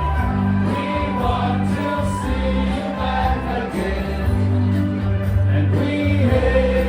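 Music with voices singing over held bass notes.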